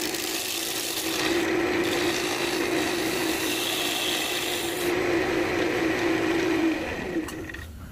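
Wood lathe running with a steady hum while a hand-held turning tool cuts a spinning cherry-branch blank, giving a continuous scraping hiss. The cutting stops about five seconds in, the lathe keeps running, and the sound drops away near the end.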